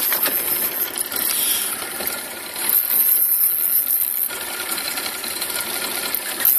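Spinning reel working against a hooked fish on a bent light jigging rod: a continuous mechanical run of reel cranking and drag.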